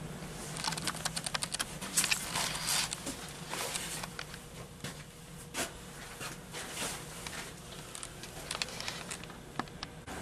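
Irregular clicking and crackling, loosest and busiest in the first half, over a low steady hum.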